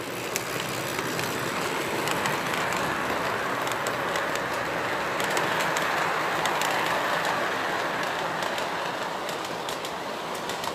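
Lionel model freight train rolling past on its track: a steady rumble of metal wheels with irregular clicks over the rail joints, loudest as the cars go by and easing a little near the end.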